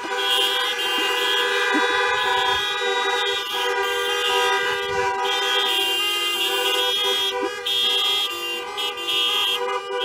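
Many car horns sounding together, several pitches overlapping in one held, near-continuous honk, with brief dips where some horns let off; they stop near the end.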